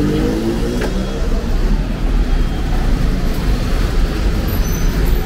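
Street traffic: a vehicle engine rising in pitch as it speeds up, fading about a second in, then a steady rumble of passing cars.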